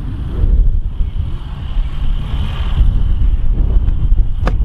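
Wind buffeting the microphone: an uneven low rumble with a faint hiss above it, and one sharp click near the end.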